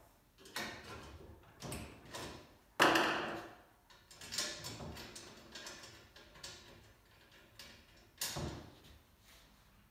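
Bolts, nuts and hand tools clinking and knocking against a metal tube frame and a table top as bolts are fitted by hand: a run of irregular clicks and knocks, the loudest about three seconds in.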